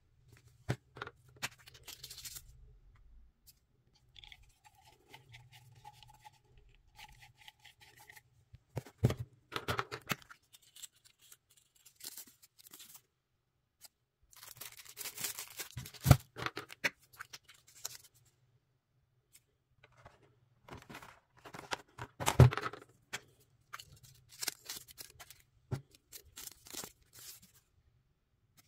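Hands unwrapping small packaged items: paper and plastic packaging crinkling and tearing in bursts between quiet gaps, with scattered clicks and three loud sharp snaps.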